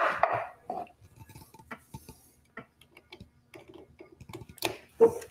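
Scattered light clicks and taps from handling things at the workbench, with a louder knock near the end.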